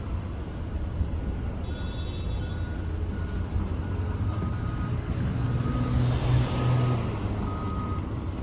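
Steady road-traffic rumble with a vehicle's reversing alarm beeping repeatedly over it. A vehicle passes, swelling the rumble, a little past the middle.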